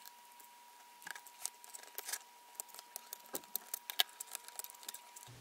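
Faint, irregular small clicks and scratches of a steel knife tip prying at a plastic screw cover on a VR headset's plastic housing.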